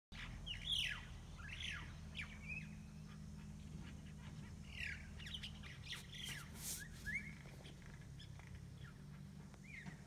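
Crested myna singing alone: a varied run of short whistled and harsh squawky notes that slide up and down in pitch, in busy spells with pauses between. The uploader takes it for a male practising its courtship song.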